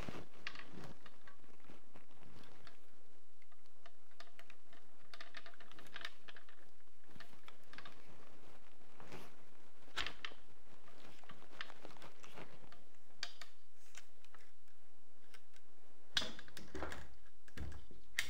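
Light metallic clicks and rattles of an RPK machine gun being handled and worked on at its buttstock end, scattered and irregular. A few heavier knocks come near the end, the loudest about 16 seconds in, as the rifle is set down on the table.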